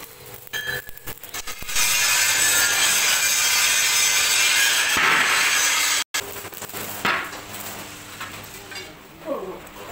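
Arc welding on the steel rim of a cement-mixer drum: a loud, steady crackling hiss lasting about four seconds that stops abruptly, followed by quieter workshop clatter.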